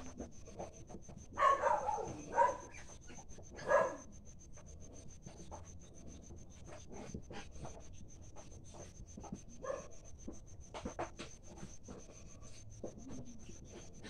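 Pigs in a farrowing pen giving a few short squealing calls that fall in pitch, a burst about one and a half seconds in, another near four seconds and a weaker one near ten seconds, over scattered rustling and clicks.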